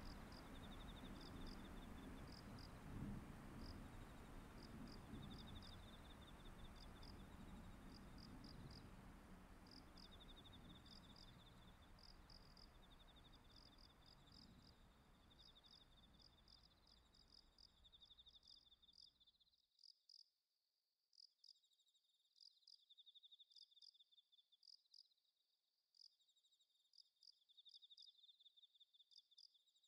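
Night insects chirping: many short, high chirps mixed with longer buzzing trills, faint. A low background noise under them fades away and cuts off about two-thirds of the way through, leaving only the insects.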